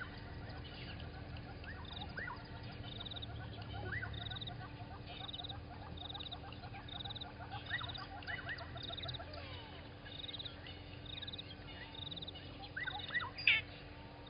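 Several birds calling together: many short rising chirps, and a high buzzy note repeated every half second or so, with one louder call near the end. A steady low hum runs underneath.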